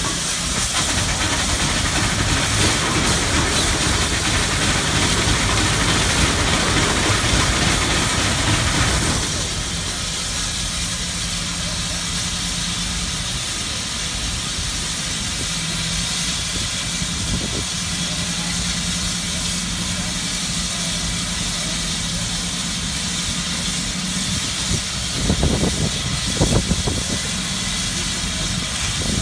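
Osgood steam shovel working, its steam engines hissing steadily as the dipper digs and is hoisted. The sound is louder and rougher for about the first nine seconds, then settles into a steady hiss over a low hum, with a few knocks near the end.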